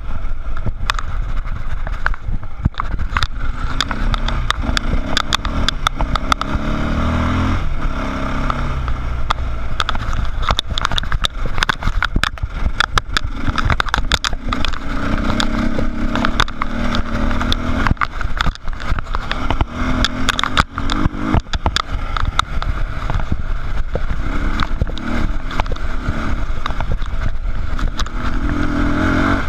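Dirt bike engine running hard on a rough trail, its note rising and falling over and over as the throttle opens and closes. Constant clatter and sharp knocks come from the bike jolting over the rocky ground.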